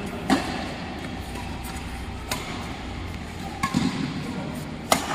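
Badminton rackets striking a shuttlecock during a rally: a handful of sharp hits a second or two apart, two of them close together near the end.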